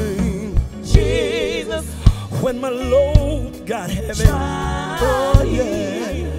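Live gospel band playing: a voice singing long, wavering notes with no clear words, over keyboard, electric guitar, bass and drums, with a strong drum hit about once a second.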